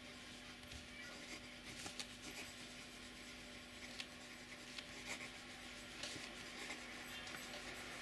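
Steel Italix medium nib of a fountain pen writing on paper: a faint, soft scratching with small ticks as the letters are formed, over a steady low hum.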